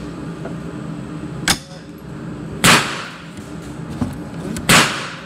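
Two loud rifle shots about two seconds apart, each echoing in an indoor range, with a fainter sharp crack about a second and a half in.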